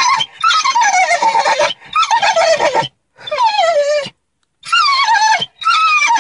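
A dog giving a string of about five long, quavering whining cries, each falling in pitch, a turkey-like warble that sets off a neigh-like tag. The dog is worked up at the sight of a cat.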